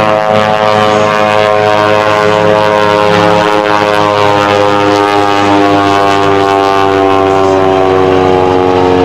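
Super Chipmunk aerobatic monoplane's piston engine and propeller running steadily in a fly-by, the pitch sinking slowly as it passes.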